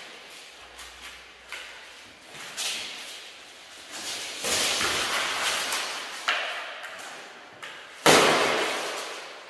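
Armoured dagger sparring: maille rattling and clinking, feet scuffing on a wooden floor, and knocks of training daggers and bodies against armour. A longer spell of rattling comes midway, and the hardest impact comes about eight seconds in.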